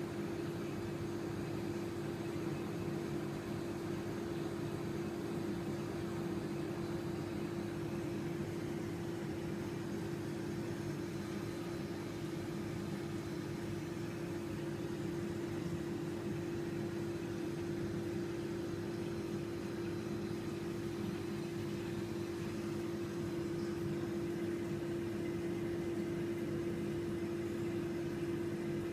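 Reef aquarium pumps running: a steady hum with one strong constant tone over a soft hiss.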